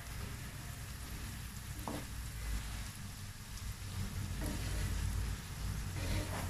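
Rice grains sizzling as they toast in butter in a pan, stirred with a wooden spoon, with a click about two seconds in. Grated tomato is poured onto the hot rice in the second half, where the sizzling grows a little louder.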